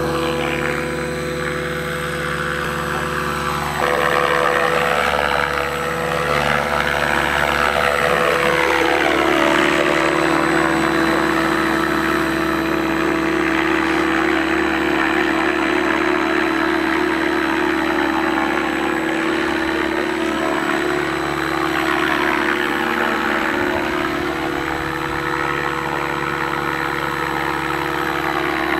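A 550-size radio-controlled model helicopter's motor and rotors whining and humming steadily. The sound steps up in loudness about four seconds in as it lifts off. The higher part of the whine rises and falls in pitch as the helicopter moves around.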